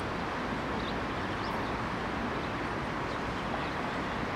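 Steady outdoor background noise: an even rushing din with a low rumble underneath, and a few faint, short high-pitched sounds.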